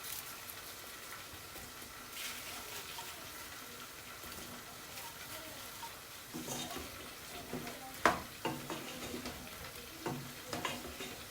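Chicken in a creamy white sauce sizzling in a pan as it is stirred, with a few clicks and a sharp knock about eight seconds in.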